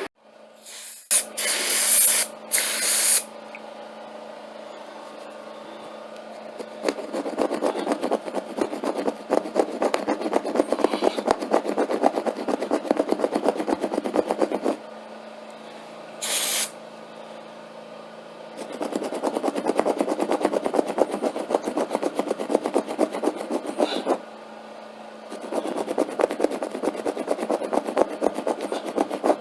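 Rapid rasping scrubbing over carpet pile, in three long stretches with short pauses between them, over a steady machine hum. A few short sharp hisses come near the start and once in the middle.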